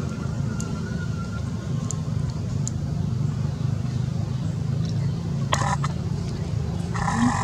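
Steady low outdoor background rumble with a few short, sharp clicks. Several higher steady tones come in near the end.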